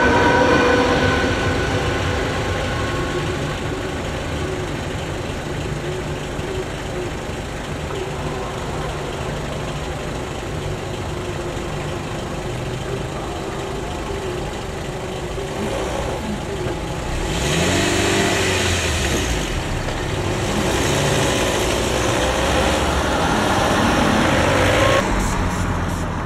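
Cars and a van driving over the level crossing, each passing swelling and fading, the loudest about 18 seconds in and more following until shortly before the end. At the very start the motor whine of a departing ČD class 471 CityElefant electric train fades away.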